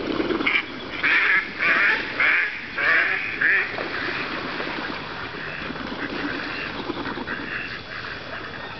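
Rooster giving about six short, harsh, quack-like squawks in quick succession, followed by quieter calls near the end.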